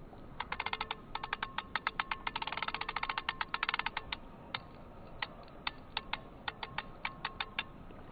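A rapid, irregular run of sharp clicks, densest in the first half and then thinning out to single ticks, over a faint steady tone.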